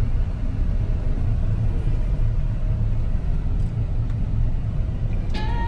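Steady low rumble inside a moving car's cabin: road and engine noise.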